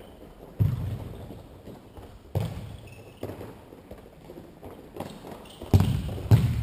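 Futsal ball being struck and bouncing on the court: four sharp thumps, two close together near the end, each echoing through a large sports hall, over the patter of players' running footsteps.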